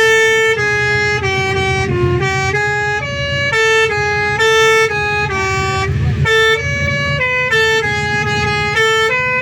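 Bus telolet horn, a multi-tone musical horn, playing a quick melody of stepped notes that change two or three times a second. A steady low engine rumble runs underneath.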